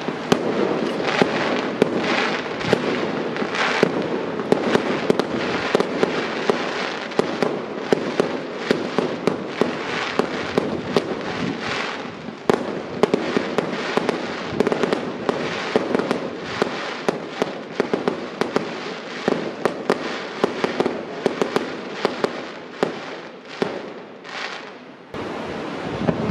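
Fireworks going off in quick succession: a dense string of sharp bangs and crackles, many a second, that thins out briefly near the end.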